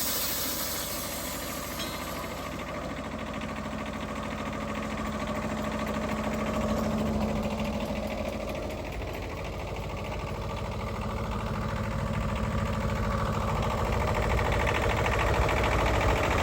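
Wood-Mizer LT15 portable sawmill's engine running steadily, its level swelling slowly toward the end.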